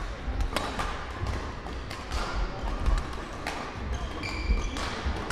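Badminton doubles rally in a large gym hall: sharp racket strikes on the shuttlecock at irregular intervals over thudding footsteps on the wooden court floor, with a few short shoe squeaks about four seconds in.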